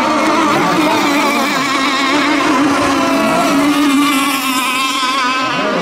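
Several radio-controlled racing boats running flat out together. Their high engine notes overlap at different pitches, wavering up and down as the boats race around the course.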